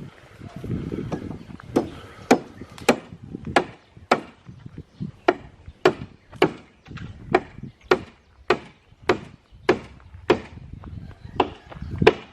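Steady, rhythmic blows on wood, about one and a half strikes a second, starting about two seconds in.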